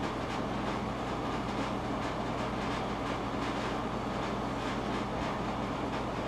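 Steady mechanical hum with a low rumble, even throughout.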